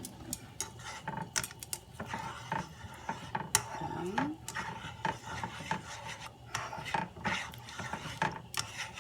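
Pepper mill grinding fresh pepper: an irregular run of ratcheting clicks and rasping.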